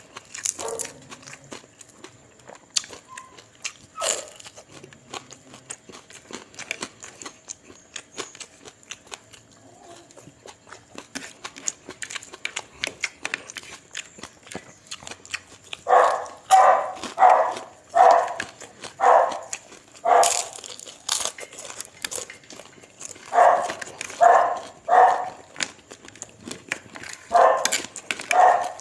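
A dog barking in three bouts of quick, repeated barks in the second half, over small clicks and smacks from eating throughout.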